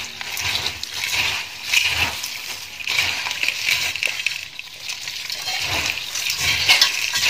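Dry, crisp fried snack mix (sev, boondi and peanuts) rustling as hands toss and stir it in a steel bowl, in repeated surges.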